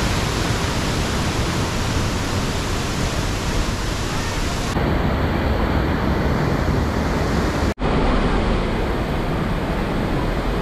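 Steady rush of waterfalls and cascading stream water in a rock gorge. The sound thins in its upper range about five seconds in and cuts out for an instant near eight seconds.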